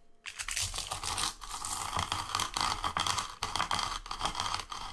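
Wooden rolling pin rolled back and forth over dried red chilies and Sichuan peppercorns on a wooden chopping board, crushing them with a steady crunching and crackling full of small clicks, starting a moment in after a brief silence.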